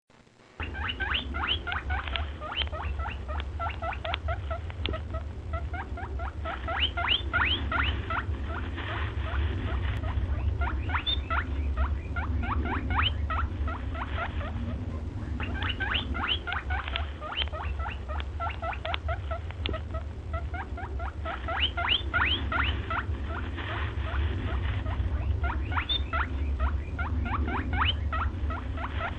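Small animal squeaking in rapid runs of short, high, rising chirps, over a steady low hum; the sequence starts over about fifteen seconds in.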